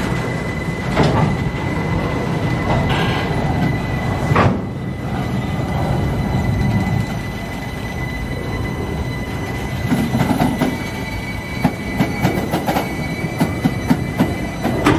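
Container freight train passing at low speed: the wagons' wheels rumble over the rails under a steady high tone, with sharp metallic knocks. The knocks come thick and fast in the last few seconds as the Stadler electric rack locomotives roll by.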